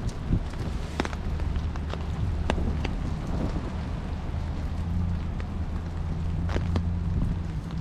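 Steady rain with occasional sharp taps of heavier drops, over a low steady hum that swells about five seconds in.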